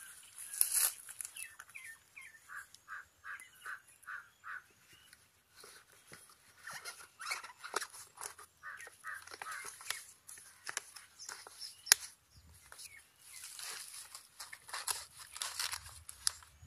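Banana leaf crinkling and rustling as it is folded and pressed into a hollowed watermelon shell, with many small crackles. Near the start a bird calls a quick run of short notes.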